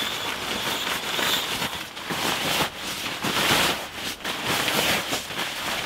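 Rustling and crinkling of a sleeping mat and groundsheet being rolled up and packed away by hand, in a continuous run of short crackly strokes.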